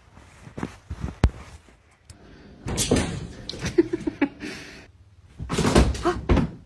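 A series of knocks and thumps, like a door or cupboard banging, with a few louder scuffling bursts.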